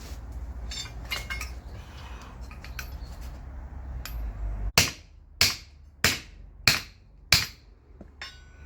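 Hammer striking metal five times in an even rhythm, about two-thirds of a second apart, each blow sharp with a brief metallic ring, after a few seconds of small tool clinks. The blows are on a mechanical tyre bead breaker set on a tractor front wheel.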